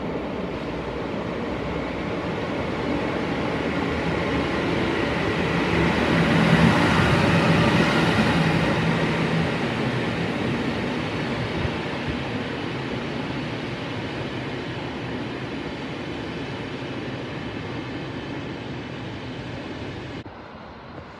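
VR Sr3 (Siemens Vectron) electric locomotive passing along the platform track: a rumble of wheels on rail that builds to its loudest about seven seconds in, with a low steady hum while it is closest, then fades. The sound drops away abruptly near the end.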